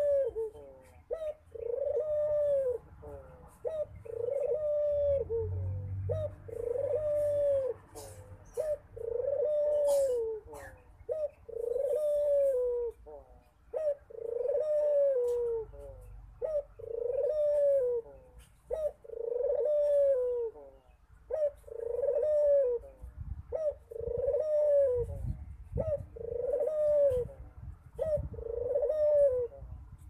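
Ringneck dove (Barbary dove) cooing in a steady series: each call is a short note followed by a long coo that rises and falls in pitch, repeated about every two and a half seconds, about thirteen times.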